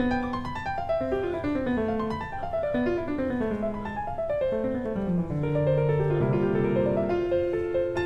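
Background piano music: short runs of notes stepping downward in pitch, one after another.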